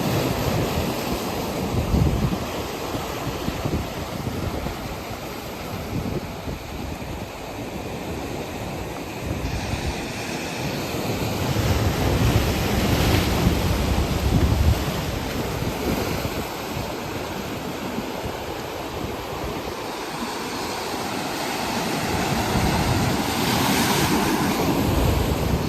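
Ocean waves washing onto the shore, swelling louder as breakers come in twice, about halfway through and near the end, then easing off. Wind buffets the microphone with a low rumble.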